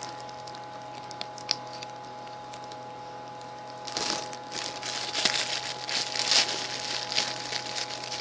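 Crinkling and rustling of a squishy toy's wrapping being handled, mostly in the second half after a few light clicks.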